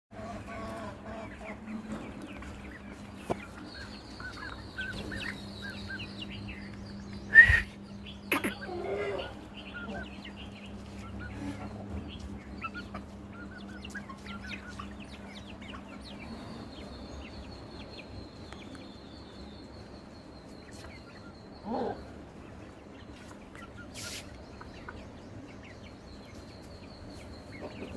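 Parrot beak aseel chickens clucking, with a few louder calls, the loudest about seven and a half seconds in and another about 22 seconds in.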